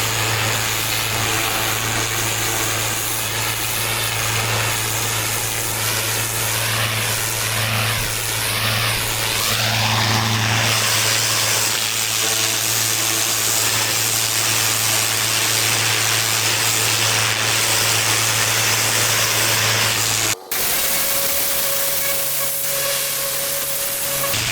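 Engine-driven pressure washer running steadily, its low engine hum under the hiss of a high-pressure water jet spraying on patio slabs. The sound cuts off sharply about 20 seconds in and gives way to a quieter steady hum with a held tone.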